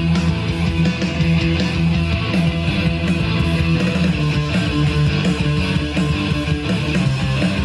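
Rock song with electric guitar playing loud through a JBL PartyBox 100 Bluetooth party speaker, with heavy bass.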